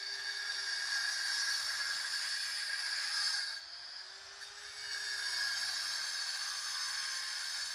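Beekeeper's smoker hissing steadily as it blows thick smoke. The hiss drops off about three and a half seconds in and starts again a second later.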